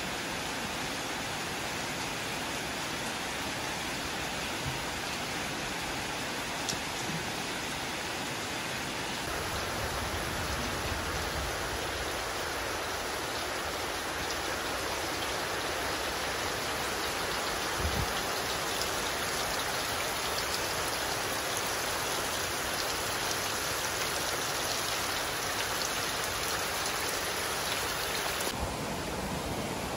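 Heavy, steady rain pouring down on a cattle barn's roof, growing a little louder about a third of the way in.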